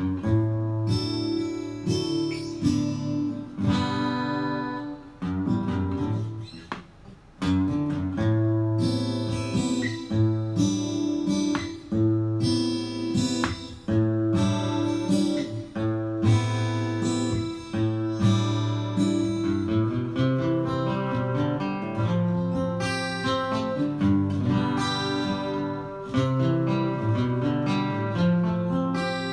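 Acoustic guitar played with a thumb pick and fingers: the thumb picks a bass line on the low strings while the fingers pluck the upper strings, in a steady run of plucked notes with a brief break about seven seconds in.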